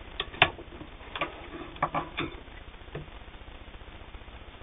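A handful of separate sharp clicks and light knocks as the sewn denim is taken out from under the needle of a vintage Singer 328K sewing machine and the threads are cut with scissors. The machine's motor has stopped.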